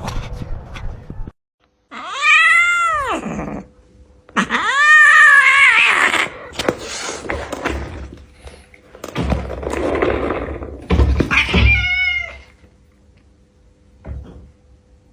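Domestic cat meowing loudly: three long, wailing meows that rise and then fall in pitch, with a rougher, noisier cry between the second and third. There are a few low thumps near the end.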